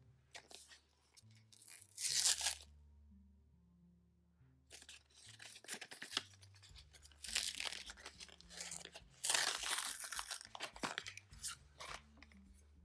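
Flash drive retail packaging being torn open, with tearing and crinkling in several bouts: a short loud tear about two seconds in, then longer stretches of tearing in the second half. Soft background music plays underneath.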